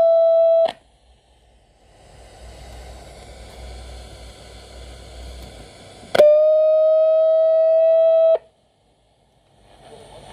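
Sanyo MW220K radio-cassette player's speaker sounding a loud, steady, whistle-like tone that cuts off abruptly under a second in, then a few seconds of faint hiss, then the same tone again for about two seconds before cutting off.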